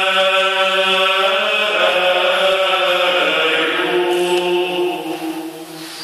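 Male vocal ensemble singing a cappella chant: several voices hold sustained chords over a steady low note, shift to a new chord about a second and a half in, and the phrase fades out near the end.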